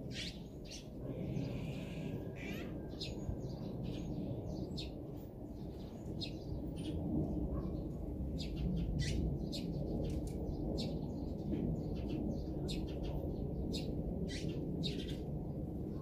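Small birds chirping, many short sharp calls coming thick and fast, over a steady low background rumble.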